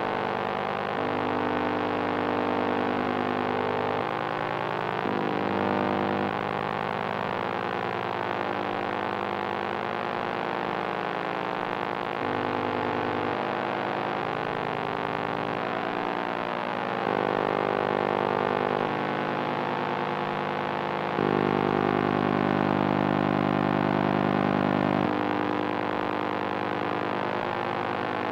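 Experimental electronic noise drone from analog machines: a dense stack of steady, distorted tones whose lower layers switch abruptly to new pitches every few seconds. It gets louder for a few seconds past the two-thirds mark.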